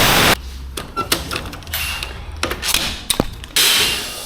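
Tire-shop tool work: mechanical clicking and rattling, with a loud burst of hiss at the start and another about three and a half seconds in.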